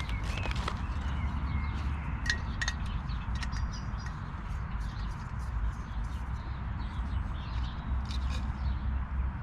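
Outdoor ambience: a steady low rumble with a few short bird chirps about two to four seconds in and some light clicks and clinks.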